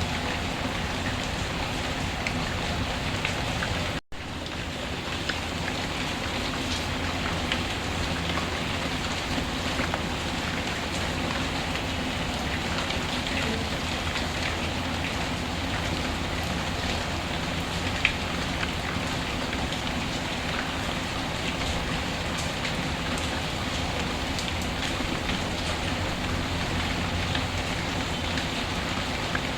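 Steady rain mixed with a crackling wood fire, its small pops scattered through, and one sharper pop about eighteen seconds in. The sound drops out briefly about four seconds in.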